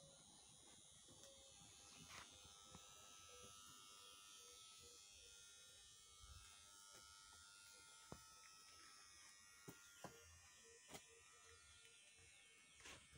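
Near silence: faint background hiss with a few soft clicks.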